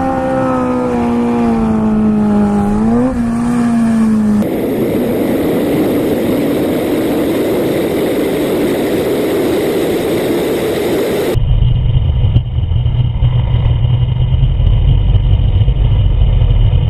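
Motorcycle engine running with a steady drone whose pitch dips and then rises about three seconds in. After a cut comes a steady rushing noise, then a deep low rumble of wind and engine from another ride recording.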